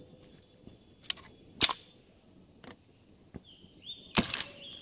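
Metadyne Thumper paintball marker, running on a 12-gram CO2 cartridge, firing one shot near the end: a sharp pop with a short ring after it. A few sharp clicks come in the first three seconds.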